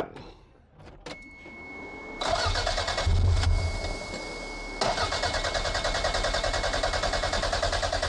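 Toyota MR2 turbo engine cranking on the starter in an even rhythm without catching, with a short lull about halfway before it cranks on. This is a crank-no-start that the vacuum hose and clamp repairs have not cured. A thin, steady high tone sounds underneath.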